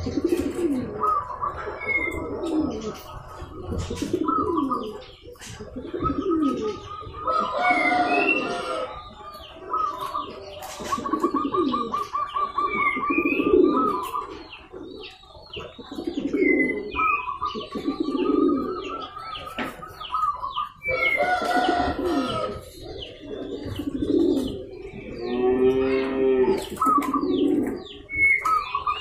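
Zebra doves (perkutut) cooing in repeated phrases, one after another, with higher trilling and short chirping calls over them.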